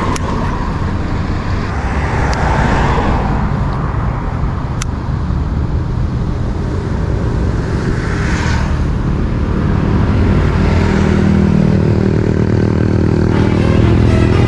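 Road traffic: a continuous low rumble of engines and tyres, with vehicles swelling past about two and eight seconds in, and a heavier engine growing louder over the last few seconds.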